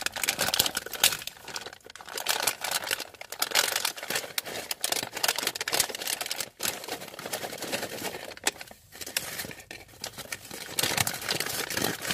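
Foil snack bag crinkling and rustling as it is pulled open and tipped, with small crackles as the curly potato chips are shaken out onto the table.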